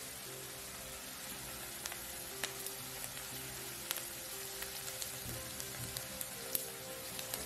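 Chopped onion and garlic sizzling in hot fat in a nonstick frying pan, a steady hiss with scattered sharp pops and crackles.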